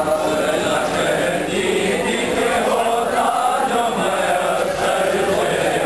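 Group of men chanting a nauha, a Shia mourning lament, together in a continuous sung recitation.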